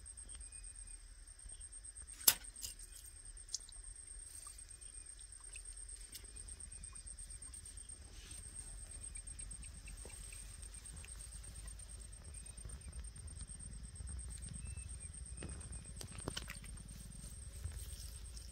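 Insect trilling steadily at a high pitch, with one loud sharp click about two seconds in and a few fainter clicks later. Low handling rustle swells near the end.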